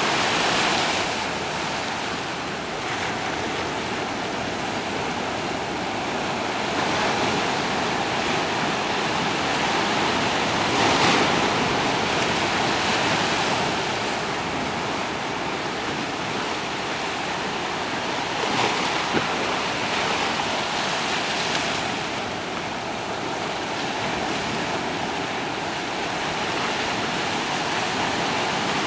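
Small waves breaking against rocks and washing over a shallow sandy shore. The surf swells and eases every few seconds.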